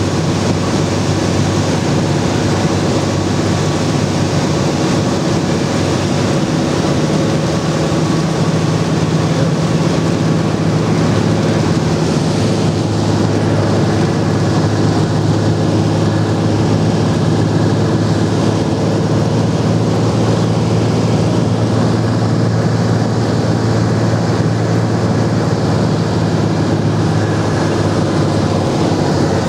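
Single-engine light aircraft's piston engine and propeller drone heard from inside the cockpit, running steadily with wind rush, as the plane descends on approach to land.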